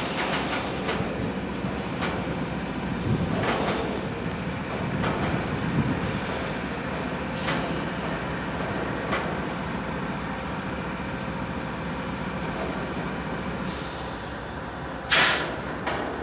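Diesel freight locomotive idling with a steady low hum, with scattered metallic knocks from the train as it couples up. Near the end comes one short, loud burst of air hiss.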